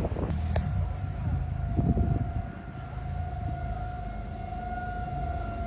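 Outdoor civil-defence siren sounding a steady tornado warning tone, coming in about a third of a second in, over wind buffeting the microphone.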